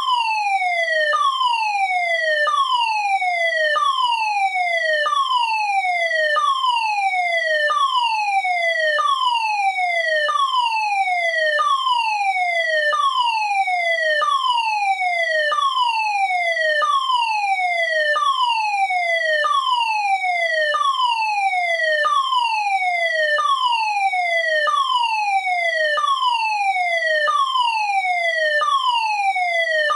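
Electronic fire alarm sounder going off: a loud, falling tone that sweeps down and snaps back to the top about every 1.3 seconds, repeating evenly without a break.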